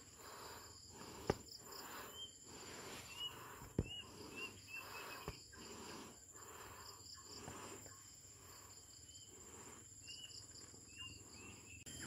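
Forest insects buzzing with a steady high whine and pulsing trills, with faint short chirps now and then. Under them, soft rhythmic rustling of footsteps on a forest trail and a few sharp clicks.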